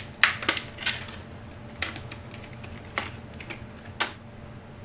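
Sharp hard-plastic clicks and clacks as a memory stick is handled and worked out of its clear plastic packaging tray: a quick cluster in the first second, then single clicks about a second apart.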